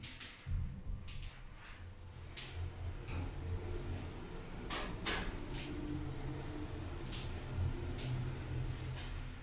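Schäfer hydraulic elevator car travelling down, with a steady low hum of the ride and scattered light clicks and knocks from the car.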